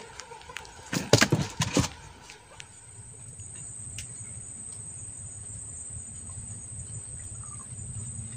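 A quick run of loud knocks and thumps on the wooden boat's fish hold between one and two seconds in. After that comes a steady high insect chirring, with a low steady hum underneath.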